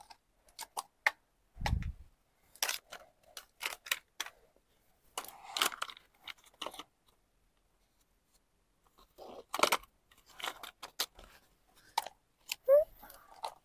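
Plastic toys clicking, knocking and scraping on sand as a small child handles them, in scattered short bursts with quiet gaps, and a dull thump about two seconds in.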